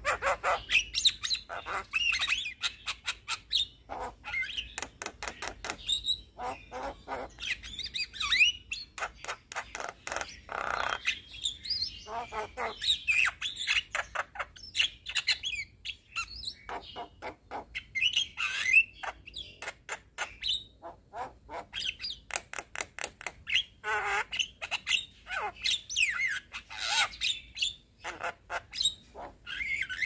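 Young Javan myna (jalak kebo) singing nonstop: a rapid, varied jumble of harsh squawks, sharp clicks and short whistled notes that slide up and down.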